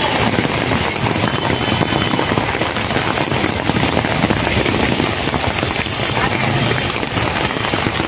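Heavy rain pouring down in a steady hiss, with cars and scooters driving through flooded street water.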